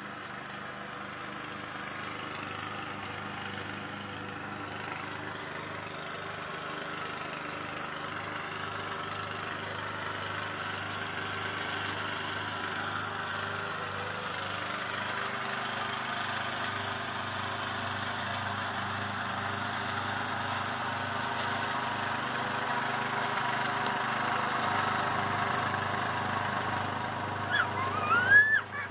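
Engine of a freshly rebuilt old Craftsman riding lawn mower running steadily as it drives across the lawn, slowly growing louder as the mower comes closer. A brief voice is heard near the end.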